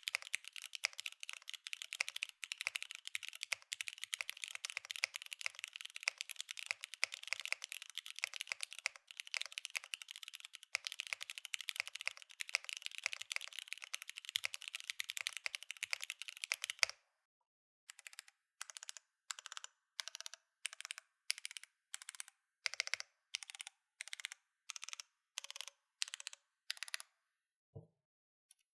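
Mode Encore 2026 mechanical keyboard with Cherry MX2A Orange switches on a carbon fiber plate, typed on fast and continuously for about 17 seconds. After a short pause come single, evenly spaced keystrokes at about two a second. Near the end there is one brief low thump.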